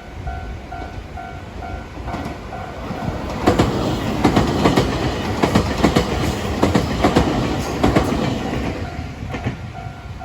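A Nankai Main Line train passes over a level crossing, its wheels clacking over the rail joints in a quick run of clicks for about six seconds before fading. A Japanese level-crossing warning bell rings with an even electronic ding, heard at the start and again near the end around the train noise.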